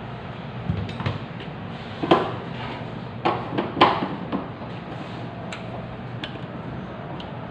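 A few sharp knocks and clicks of hands and tools working on a portable generator, bunched in the first half, over a steady low hum.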